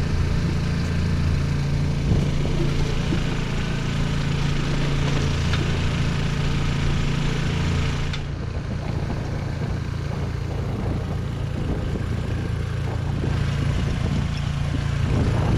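Sailboat's motor running steadily with a low hum, under a constant rush of wind and water.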